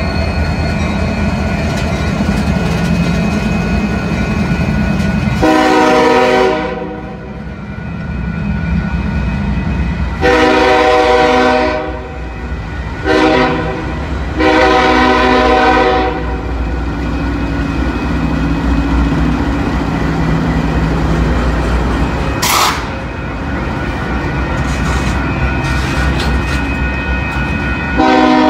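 Diesel freight locomotive horn sounding the grade-crossing signal: two long blasts, a short one and a long one, over the steady rumble of the passing locomotives and cars. Another long blast starts near the end.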